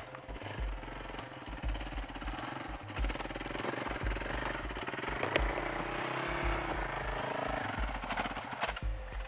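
Enduro dirt bike engine revving under load on a steep rocky climb, its note rising and falling with the throttle. It grows louder about three seconds in as the bike comes closer. Dull low thumps run underneath.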